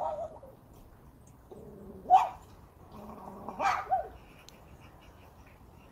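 A raven imitating a dog, giving three short barking calls about two seconds apart.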